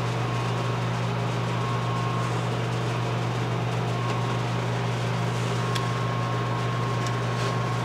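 Steady low mechanical hum that holds unchanged throughout, with a faint higher whine above it.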